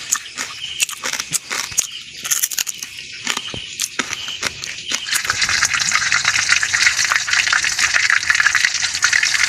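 Kitchen cooking sounds: scattered clicks and knocks, then a steady, louder hiss from about five seconds in.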